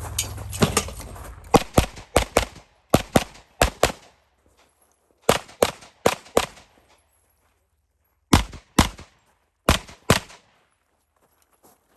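Pistol shots fired in quick pairs and short strings, a few shots a second with pauses of a second or two between groups.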